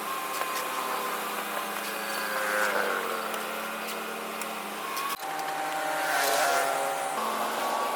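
An engine running steadily, its pitch swelling and easing slightly a couple of times, with an abrupt break about five seconds in.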